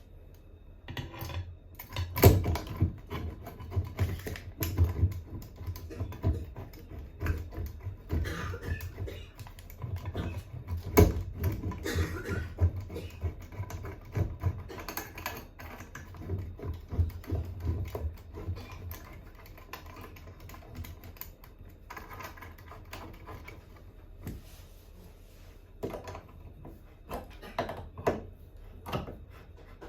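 Irregular clicking, tapping and knocking of hand tools and metal fittings being worked on a bathroom faucet, thickest through the first two-thirds and sparser near the end.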